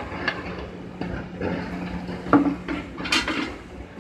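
Large perforated metal ladle knocking against an aluminium cooking pot as boiled chickpeas are scooped out of their water and tipped into a metal bowl. It gives several sharp knocks and a louder rattling clatter about three seconds in, over a steady low hum.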